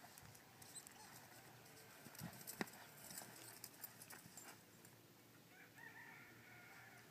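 Faint hoofbeats of a cutting horse moving over arena sand, with a few sharper knocks, the loudest about two and a half seconds in. A faint high call sounds near the end.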